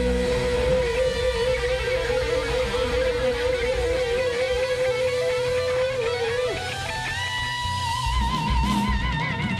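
Live rock band with an electric guitar lead holding one long note with vibrato, then sliding up to a higher held note about two-thirds through, over the band.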